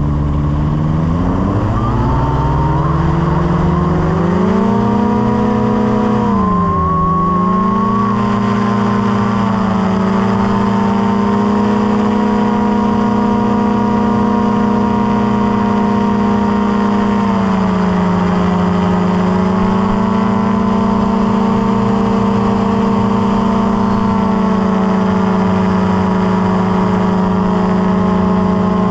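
Small aircraft's engine and propeller running up to power, rising in pitch over the first few seconds, then holding a steady drone that eases down slightly about seventeen seconds in.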